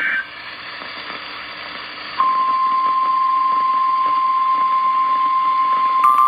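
The last moment of an EAS/SAME header data burst, then a couple of seconds of radio hiss. About two seconds in, the NOAA Weather Radio warning alarm starts: one loud, steady, unbroken tone that heralds a tornado warning broadcast.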